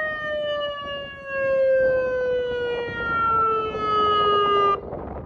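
Outdoor tornado warning siren winding down from a test sounding. Its single wailing tone falls steadily in pitch, then cuts off sharply shortly before the end.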